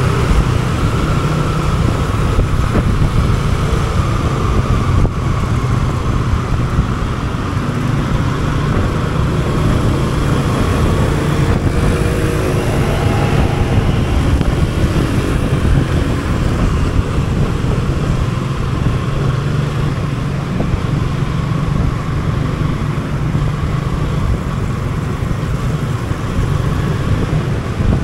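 Motorcycle engine running steadily while riding through city traffic, with a low road-and-traffic noise. About twelve seconds in, an engine note rises briefly as a vehicle accelerates.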